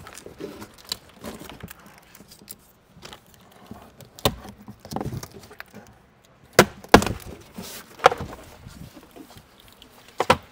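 A large cardboard shipping box being handled by hand, its panels and flaps pushed, bent and rubbed, with rustling between several sharp knocks. The loudest is a pair of knocks a little past the middle, with another just before the end.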